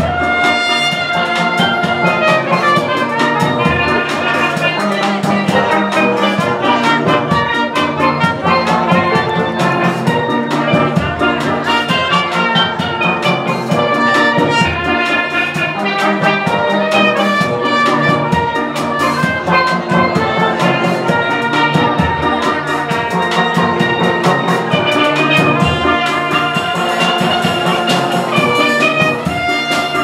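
Live steel band music: steel pans, including bass pans, playing a melody with a trumpet and a drum kit keeping a steady beat.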